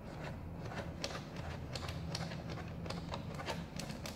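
Light, irregular clicks and taps of small laptop screws being picked up and set down on a tabletop, over a low steady hum.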